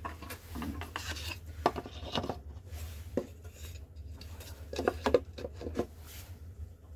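Light wooden knocks and clatter as thin pine cover boards are handled and set down onto a wooden box frame. There are clusters of taps about a second in and again around five seconds in.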